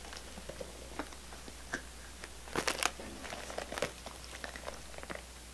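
Faint handling sounds of a small quilted lambskin handbag and its chain strap: light rustles and scattered clicks as a lip balm tube is slipped inside. A cluster of louder clicks comes a little past halfway.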